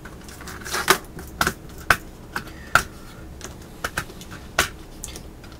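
Small clear plastic component organizer boxes clicking and clacking as they are handled: a scattering of irregular sharp clicks and taps.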